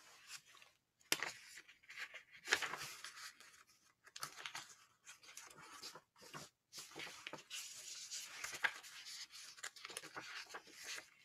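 Faint rustling and crinkling of paper in irregular bursts with a few light clicks, as the pages of a book are leafed through.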